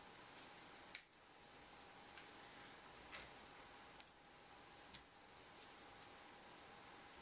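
Near silence broken by several small, sharp clicks and taps of brass air-hose fittings being threaded by hand onto an airbrush compressor's outlet splitter, with a faint steady tone underneath.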